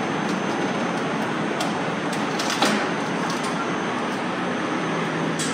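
Steady mechanical running noise in a truck shop, with a few light clicks and a sharper knock about two and a half seconds in.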